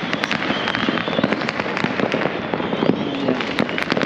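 Many fireworks and firecrackers going off at once: a dense, continuous crackle of overlapping pops and bangs with no single standout blast.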